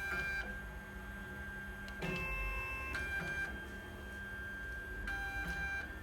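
Stepper motors of a homemade CNC wire-bending machine whining in steady tones as it feeds and bends wire, the pitch changing with each move: about two seconds in and again near the end.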